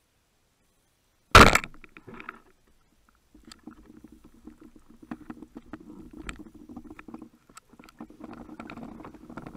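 A band-powered speargun firing underwater: one sudden sharp crack a little over a second in, dying away within about half a second. From about three and a half seconds in comes a low rumbling with scattered clicks while the shaft's line is out and pulled taut.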